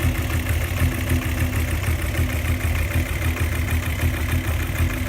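Volkswagen Jetta 2.8 VR6 engine idling with a steady, evenly pulsing rumble and the rattle ("cascabelea") it has developed; the engine has lost power, and the owner speculates the timing chain tensioner is to blame.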